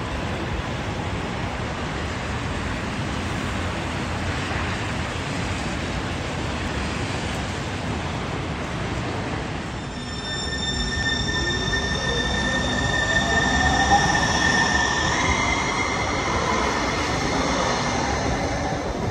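Siemens S700 light rail train: first a steady rush of rolling noise as it comes in, then, about halfway through, it pulls away, its traction motors whining up in pitch as it accelerates. Several high steady whistling tones sound over the whine, and one of them steps up in pitch partway through.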